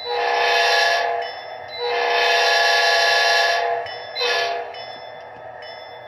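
Model locomotive sound-decoder horn in an Athearn Genesis P42, set to a modern Nathan P5A five-chime horn, sounding two long blasts and one short one through the model's small speaker.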